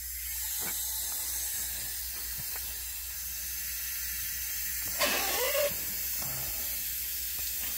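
Water rushing out of a well pressure tank through an opened spigot and garden hose, a steady hiss with spray from a leaking hose connection, as the tank is drawn down. A brief louder rasp about five seconds in.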